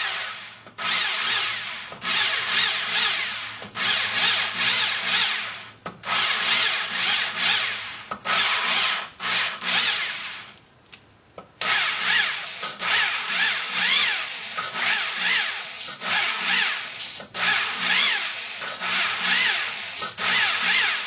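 Cordless drill spinning a poppet valve on its seat in a Porsche 944 cylinder head, with gritty lapping compound between them: a harsh grinding rasp over the drill's motor whine. It comes in repeated bursts of a second or two, the valve lifted off its seat between them, with a longer pause about ten seconds in. This is the valve being lapped in so that it seats fully for compression.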